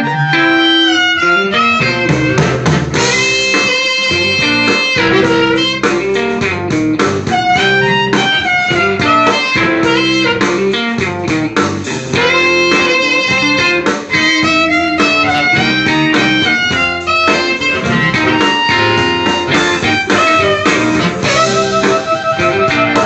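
Amplified blues harmonica played through a JT-30 bullet microphone with a 99C86 element and a little harp delay, over a blues backing track with electric guitar. The harp notes bend and glide.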